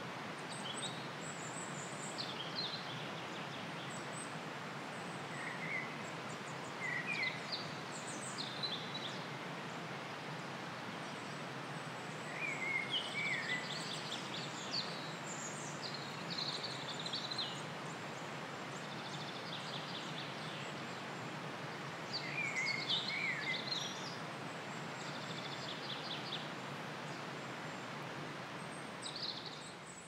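Birds singing on and off, short bursts of chirps and trills every few seconds over a steady rushing background of outdoor ambience.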